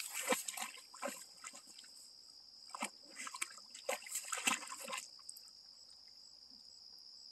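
Dog wading into a pond, the water splashing and sloshing in a string of short splashes over the first five seconds, then quieter. A steady high insect whine runs behind it.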